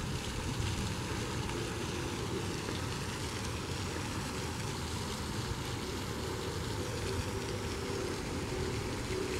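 Steady outdoor rumble of wind on the microphone, a low even noise with no distinct events.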